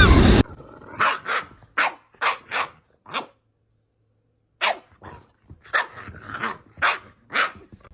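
Dog barking in short, separate barks: a run of about six, a pause of over a second, then about seven more.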